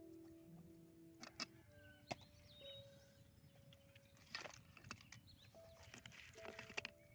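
Faint, soft instrumental background music with long held notes, with a few scattered sharp clicks and taps, the loudest about two seconds in and near the end.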